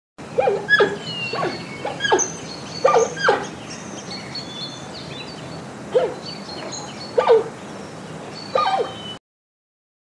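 Giant panda calling: about nine short calls, each falling quickly in pitch, mostly in pairs with pauses between. The calls stop about a second before the end.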